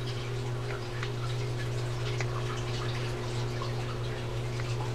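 Faint scattered light clicks and ticks of small fishing-reel parts being handled, over a steady low hum.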